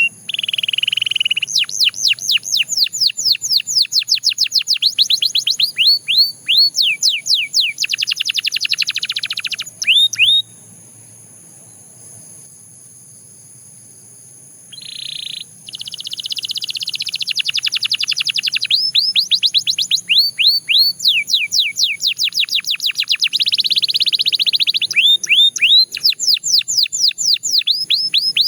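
Belgian canary singing: long tours of rapid, repeated downward-sweeping notes alternating with fast rolls, in loud, continuous song. The singing stops for about four seconds near the middle, apart from one short phrase, then resumes.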